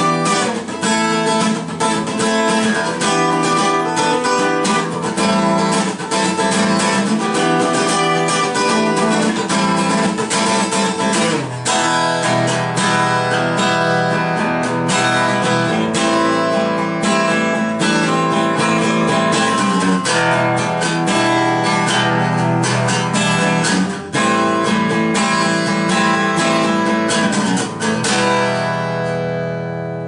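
Strimberg JS 02C jumbo acoustic guitar with light 009 strings, played unplugged, strummed in steady chords with a sound that is a little bright but soft; near the end the last chord rings out and fades.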